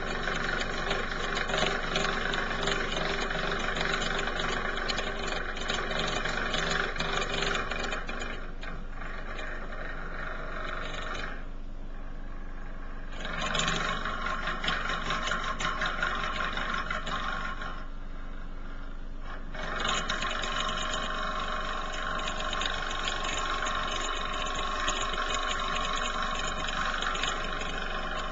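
Bedroom ceiling light fitting rattling and buzzing, shaken by a washing machine running in the flat upstairs, over a low machine drone carried through the ceiling. The rattle eases off twice for a couple of seconds, a little before halfway and about two thirds of the way in.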